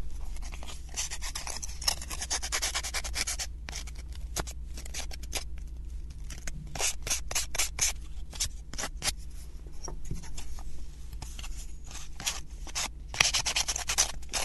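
Sandpaper rubbed by hand against the edges of a small flat wooden puzzle piece to smooth them, in quick, uneven strokes.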